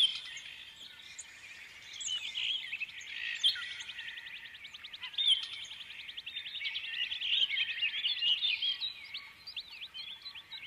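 Many small birds chirping and twittering together, with a fast, even trill from about two to six seconds in.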